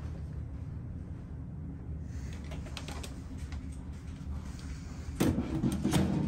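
A small countertop microwave oven's hinged door being pushed shut: a cluster of knocks and a latch click about five to six seconds in, over a low steady hum.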